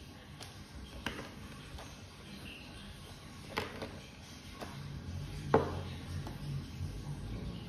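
Scattered light clicks and knocks from hands handling a plastic microphone shock mount and coiled cable, with one sharper knock about five and a half seconds in.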